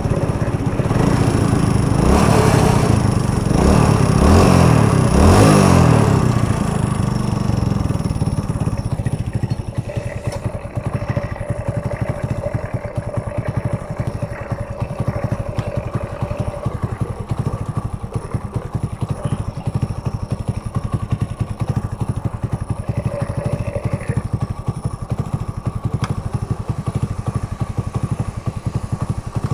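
An old Hero Honda Splendor's single-cylinder four-stroke engine is revved for the first several seconds, then settles to a steady idle. The engine is freshly rebuilt with a new cam, rocker arms, tensioner rollers and a thick-link timing chain, and is running on 20W40 oil.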